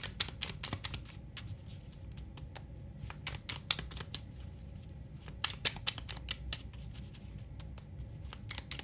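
Oracle cards being handled off camera: light crisp clicks and snaps come in scattered clusters, with a cluster of louder ones a little past the middle.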